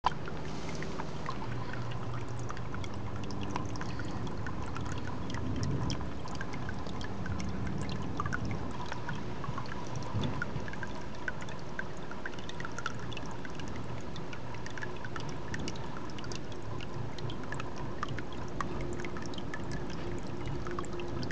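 A steady stream of water pouring and splashing into a pond, with a constant patter of small splashes.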